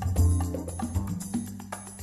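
Funky instrumental background music with a bass line and percussion.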